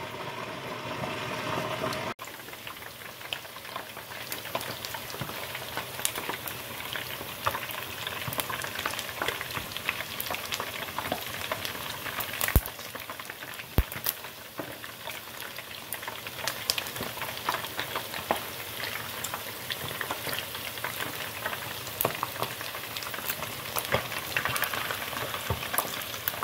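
Chicken wings deep-frying in hot oil in a wire basket in an electric deep fryer: a steady, dense bubbling crackle, with a couple of sharper pops a little before the middle.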